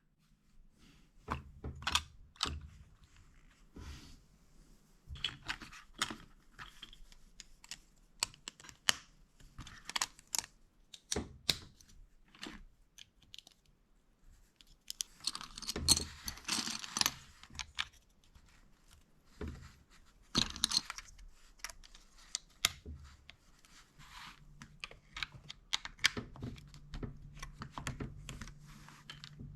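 Plastic building bricks clicking and snapping together by hand as a brick-built train's coal car is assembled, in irregular small clicks, with a longer rustle of loose pieces being handled about halfway through.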